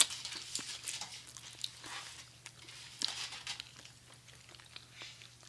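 People chewing and biting into turkey close to the microphones: scattered soft, wet mouth clicks and smacks, thinning out about halfway through.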